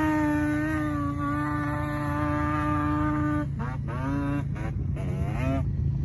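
A Spanish-language song: the singer holds one long steady note for about three and a half seconds, then sings short rising-and-falling phrases, over a steady low hum.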